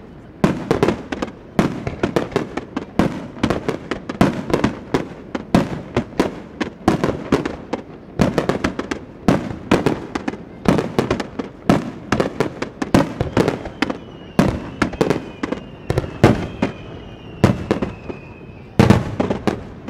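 Aerial firework shells bursting in rapid succession, about two or three booms a second, with a last loud cluster near the end. A faint falling whistle runs under the booms in the second half.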